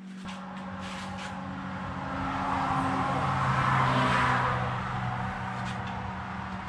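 A vehicle passing by: its noise swells to a peak about four seconds in, then fades. Under it is a steady low hum, and there are a few light clicks near the start and again near the end.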